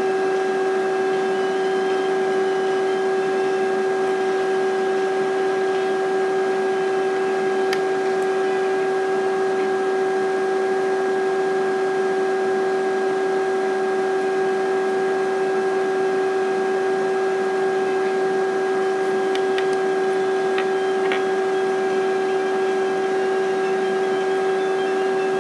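Steady electrical hum over even hiss, with a constant mid-pitched tone and weaker overtones, and a few faint ticks. It is background noise in a screen recording, not the match audio or music.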